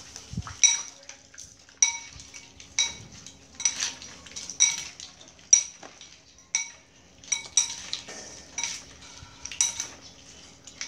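Metal spoons clinking against ceramic plates and bowls as people eat, about one clink a second, each with a short ring.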